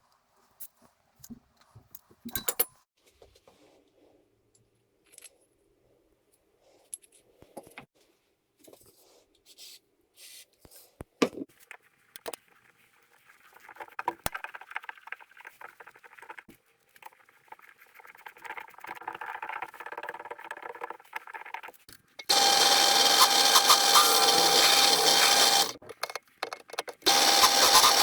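Small metal parts and tools clicking and knocking as they are handled, then a power tool running loudly in two spells of about three seconds, with a steady tone.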